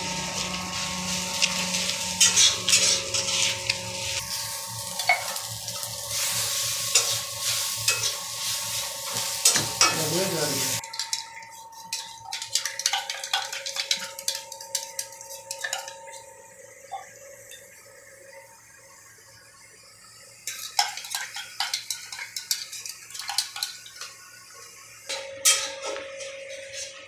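Food sizzling in a steel kadai on a gas stove, with the scrape and clink of stirring, for about the first eleven seconds, then the sizzle cuts off suddenly. After that come scattered clinks and knocks of steel plates, a tumbler and a spoon.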